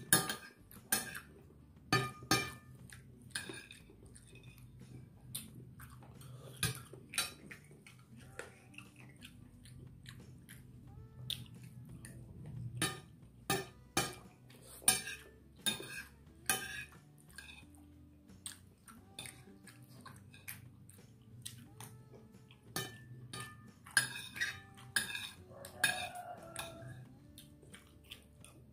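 Metal spoon scraping and clinking against a ceramic dinner plate while scooping up rice, with many sharp, irregular clinks.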